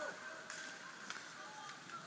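Ice hockey rink ambience during play: a steady hum in the arena, with a few sharp clicks of sticks and skates on the ice.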